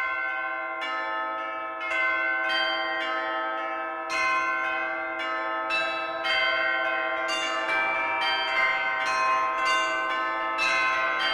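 Several church bells ringing in a peal, struck one after another about two to three times a second, each bell ringing on so the strokes overlap into a continuous, layered ring.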